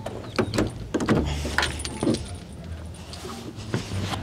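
Minivan door being opened and someone climbing in: scattered clicks, knocks and rustling of clothing against the door and seat.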